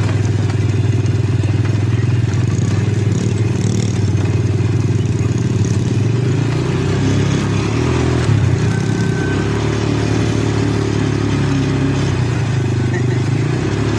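ATV engine running steadily under the rider, its low note wavering from about halfway through as the throttle changes.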